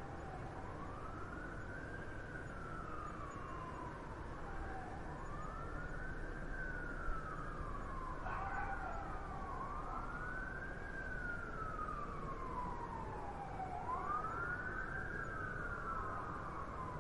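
Emergency vehicle siren wailing over steady city traffic noise. Its pitch rises quickly and falls slowly, one cycle every four to five seconds. A brief knock sounds about seven seconds in.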